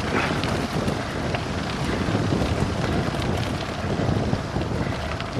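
Strong wind rushing over a Samsung Gear 360 camera's microphone on a bicycle descending fast, with the tyres rolling on loose gravel underneath.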